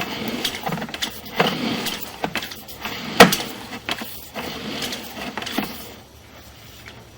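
Irregular clattering knocks and scraping rattles, typical of a plumber's sewer inspection camera and its push cable being handled and fed. One sharp knock about three seconds in is the loudest, and the clatter dies away about a second before the end.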